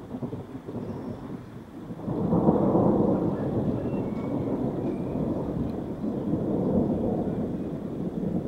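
Thunder rumbling: a low rolling rumble that swells sharply about two seconds in and keeps rolling on.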